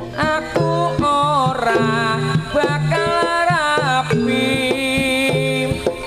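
Live Javanese jaranan music played through a sound system: a wavering lead melody that bends in pitch, over drum strokes and a repeating low tone.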